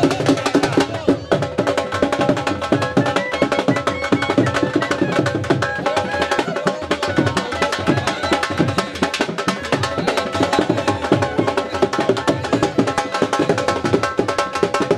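Drums played fast and continuously in a steady, driving rhythm, with a sustained melody line held over them.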